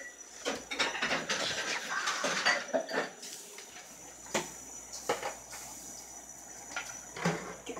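Kitchen clatter of dishes and utensils being handled on a counter: a busy stretch of clinking and rustling in the first few seconds, then a handful of separate sharp knocks.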